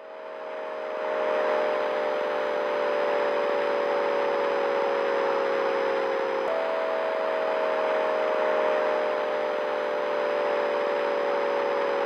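Sonified audio presented as the sound of the Big Bang: a steady hiss under a low humming chord that fades in, slowly falls in pitch, jumps back up about halfway through and falls again.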